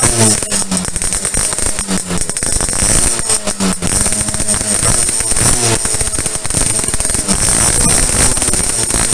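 Yamaha V80's two-stroke single-cylinder engine running with a dense crackle, with background music mixed over it.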